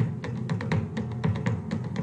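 Background music with a quick, steady drum beat of about four strikes a second over a low sustained tone.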